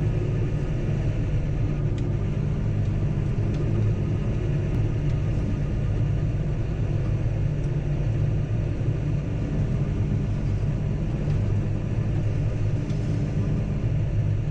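Bells pealing in the distance, many overlapping ringing tones held steadily, over a loud, steady low rumble.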